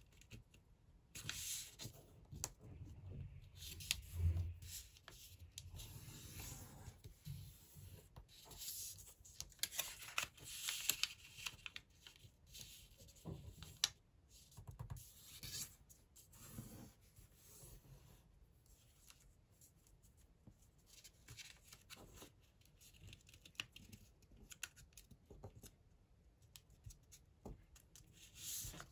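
A sheet of 15 cm origami paper being folded and creased by hand: irregular rustling and crinkling as the paper is bent over, with fingers rubbing along the folds to press the creases flat.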